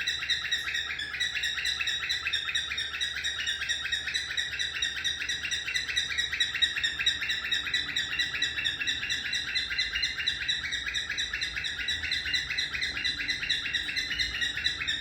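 Pet cockatiel calling in a fast, unbroken string of short chirps, many a second, kept up steadily without pause: its insistent wake-up calling.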